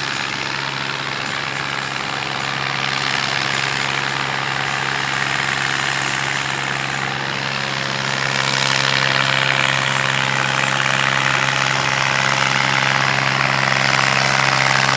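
Fendt tractor's diesel engine running hard under steady load as it drags the pulling sled, a steady low drone that grows louder about eight seconds in as the tractor comes closer.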